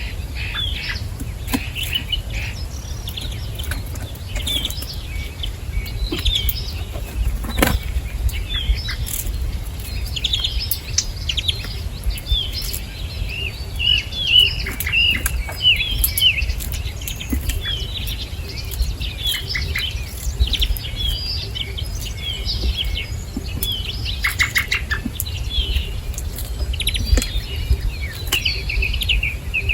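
Small wild birds chirping busily around a feeder: many short, high chirps throughout, mixed with brief wing flutters and sharp clicks, over a steady low rumble.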